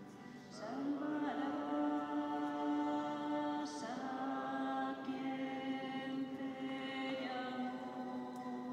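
Slow church music with long held chords that change about every three seconds, chanted or sung.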